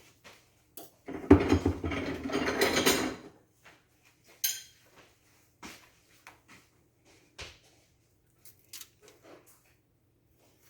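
Kitchen handling noise as a plate is fetched: about two seconds of loud clattering about a second in, followed by scattered light clicks and taps of dishes and utensils.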